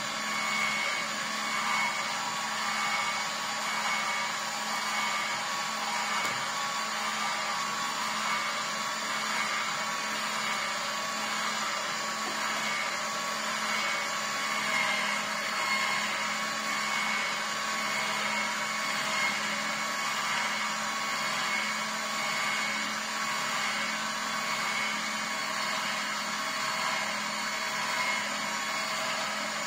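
Vertical slow juicer running, its motor and auger pressing pineapple chunks into juice. It makes a steady hum that holds one pitch.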